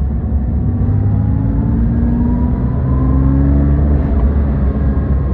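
Porsche 997's flat-six engine running under way, its pitch rising slowly through the middle, with a thin whine rising along with it.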